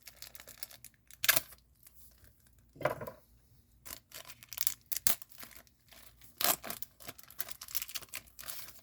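Stretchy plastic wrapper of a 1991 trading card pack being pulled and torn open by hand: a run of irregular crinkles and tears, the loudest rips about one and three seconds in.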